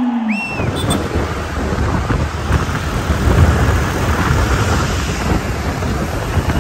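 Wind buffeting a phone microphone held out on a moving motor scooter: a loud, steady rush of wind and road noise with a heavy low rumble that starts abruptly about half a second in.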